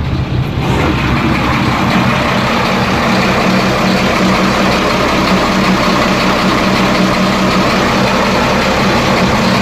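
Inboard boat engine running steadily, heard from its open engine compartment; it grows louder about a second in as the hatch comes open.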